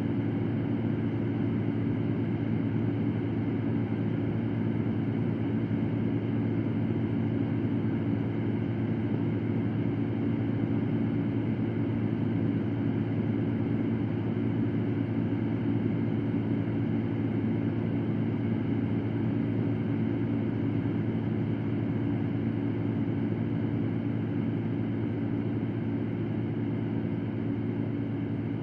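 Electric fan running steadily: a constant rush of moving air over a low hum, with no change in speed.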